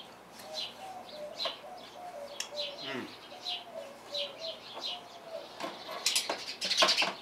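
Small birds chirping over and over, with a low cooing call in the first few seconds. Near the end comes a loud run of sharp clatters and scrapes, the loudest sound here.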